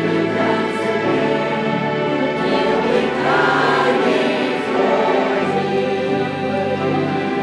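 Church choir singing a hymn with instrumental accompaniment: a steady run of sustained sung notes over held low notes.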